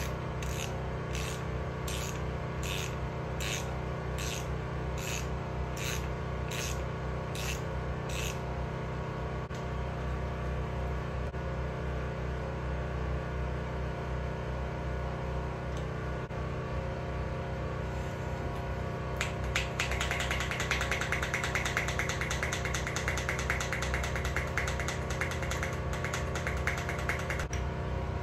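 Hand work on a Fox air suspension fork in a bike stand. For the first eight seconds there are about two short hissing strokes a second at the top of the fork. From about nineteen seconds in comes a fast run of clicking that lasts roughly eight seconds. A steady low hum runs underneath.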